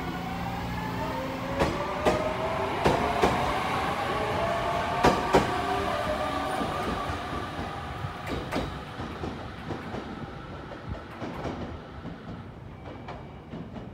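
JR Kyushu 815 series electric train pulling out and accelerating, its motor whine rising in pitch while the wheels clack over rail joints. The sound fades as the train moves away.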